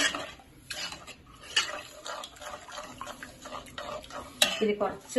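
Steel spoon stirring a thick curd mixture in a ceramic-coated pan, with irregular clinks and scrapes against the pan.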